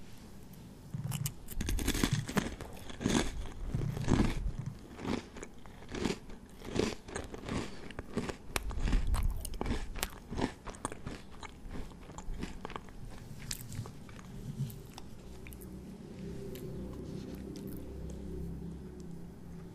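Close-miked crunching and chewing of crisp food: a run of loud, sharp crunches through the first half, easing into softer chewing from about two-thirds in.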